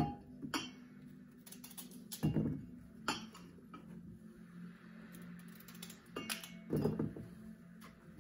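Pieces of peeled potato dropping into a small stainless steel saucepan, with several separate knocks and clinks against the metal over a low steady hum.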